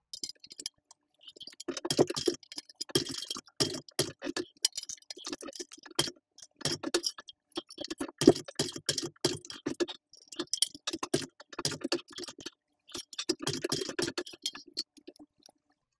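TechSew 2750 Pro walking-foot industrial sewing machine stitching slowly through a thick leather strap, topstitching an accent piece. It makes rapid runs of ticks and clunks in short spurts, with brief stops between them.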